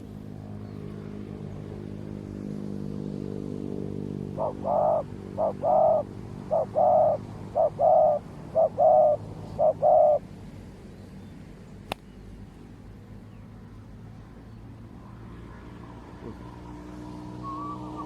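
Spotted dove cooing: a phrase of paired coos, each a short note followed by a longer one, about six pairs from about four to ten seconds in. A steady low hum runs underneath, and a single sharp click comes about two seconds after the cooing ends.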